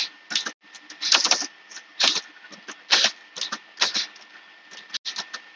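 Laptop keyboard being typed on: a password entered in quick, irregular keystroke clicks.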